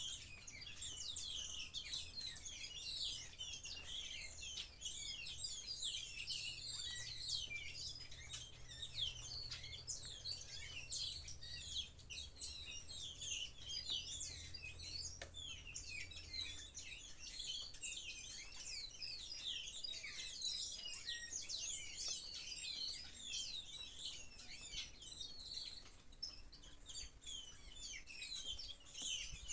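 Many small birds chirping and twittering at once: a dense, continuous chorus of quick high chirps. A faint low hum underneath stops a little past halfway.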